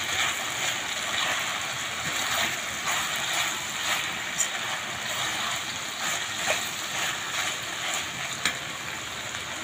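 Chopped ridge gourd and potato sizzling in oil in a nonstick kadai as a spatula stirs them, with occasional light taps and scrapes of the spatula against the pan.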